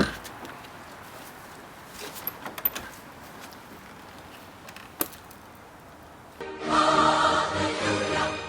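Quiet hiss with a few faint clicks and one sharp click about five seconds in, then music with singing voices comes in suddenly near the end.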